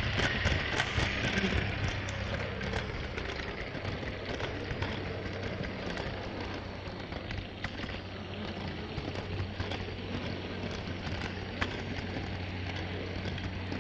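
Lego 9V train rolling along plastic track, heard from on board: wheels rattling with frequent clicks over the rail joints, over a steady low motor hum.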